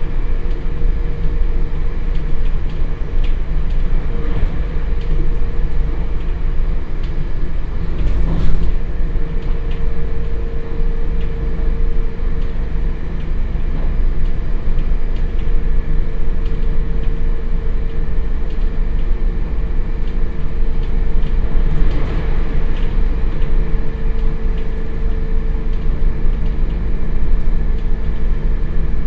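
Onboard running sound of a JR Hokkaido 721 series electric train's motor car coasting with traction power off: a steady deep rumble of wheels on rail with a steady gear whine, heard from inside the passenger cabin. A brief knock about eight seconds in.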